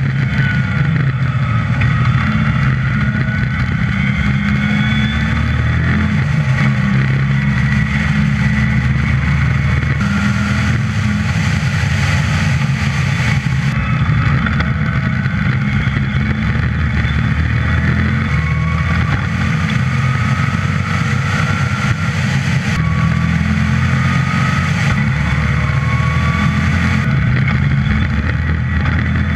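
Westfield's 5-litre V8 engine running hard on a track lap, revs climbing and dropping back at gear changes, with wind noise over the open car.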